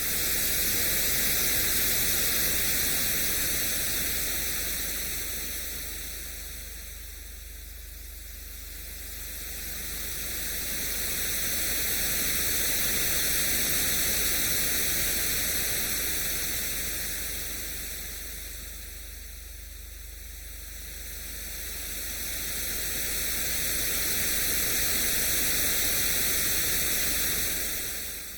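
Ocean-wave sleep sound: an even hiss of surf that swells and fades slowly and regularly, peaking three times, about every twelve seconds.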